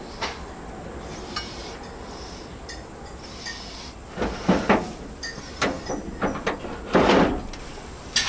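Wire cooking racks of a Masterbuilt smoker clinking and scraping against the smoker's metal cabinet as they are slid out and back in while meat is loaded. The loudest clatters come about four and a half and seven seconds in.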